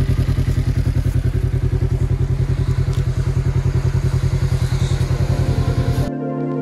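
Polaris RZR XP 1000 side-by-side engine idling steadily with an even throbbing pulse. It cuts off abruptly near the end, replaced by soft ambient music.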